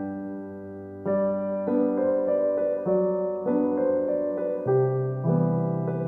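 Background piano music: a gentle melody, with new notes and chords struck every half second or so.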